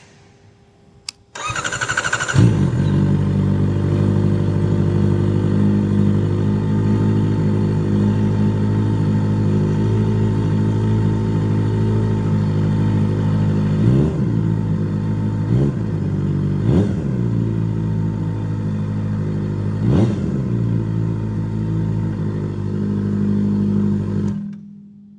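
Kawasaki ZX-4RR's inline-four engine through a Trick Star Ikazuchi slip-on exhaust with its dB killer baffle removed: it cranks on the starter, catches about two seconds in and idles steadily. Four short throttle blips come in the second half, and the engine is switched off near the end.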